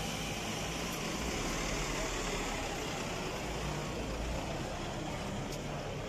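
Ambulance engine running close by amid steady street noise, with a low rumble underneath and no siren.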